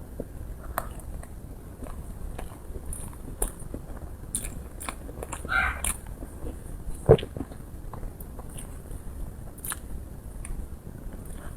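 Close-up mouth sounds of chewing soft, chewy taro balls and tiger-skin cake: scattered wet clicks and smacks, with one sharper, louder smack about seven seconds in.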